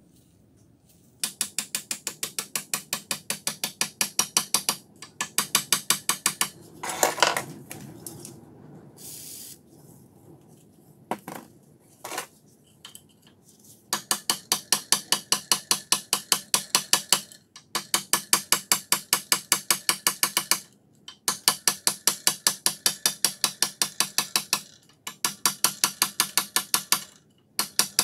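Rapid, even metallic clicking, about ten clicks a second, in runs of two to four seconds with short pauses, from a slim hand tool worked against the rusted slider of an old Helios vernier caliper.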